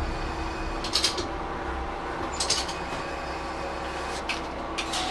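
Cab-end interior sound of a Chizu Express HOT3500-series diesel railcar running slowly: a steady low rumble and hum, with a few short sharp clicks spaced a second or two apart.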